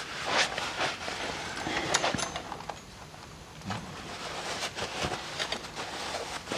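Small metal engine parts and hand tools clinking and knocking as they are handled, with scattered irregular clicks during teardown of the timing-belt area of an engine.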